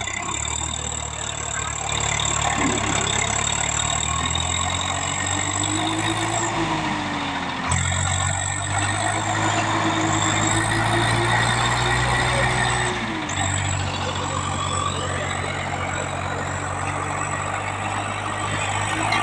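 Diesel tractor engine running, pulling a trolley loaded with sand, its note rising and falling a little with the throttle. The engine sound changes abruptly twice, about eight and thirteen seconds in.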